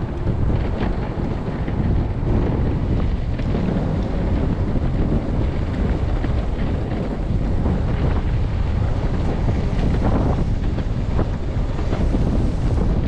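Heavy wind buffeting the action camera's microphone, a dense, steady low rumble, while riding an electric skateboard.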